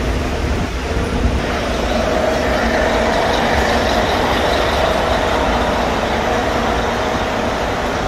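Steady city street traffic noise, with a bus engine running close by.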